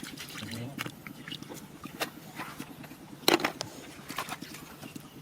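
Scattered clicks and rustling, with a sharper knock a little after three seconds in.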